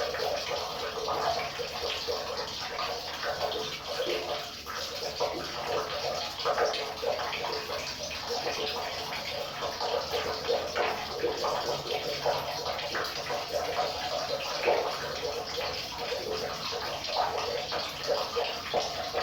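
River water running and splashing over rocks: a steady rushing with constant small gurgles.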